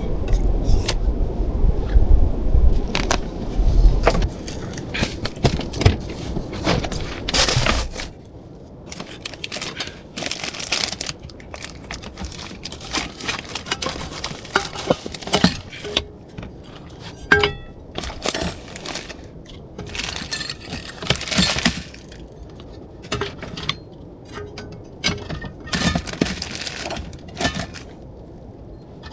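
Low rumbling storm noise for about eight seconds, which cuts off abruptly. After that come scattered sharp clicks, knocks and clinks at an uneven pace.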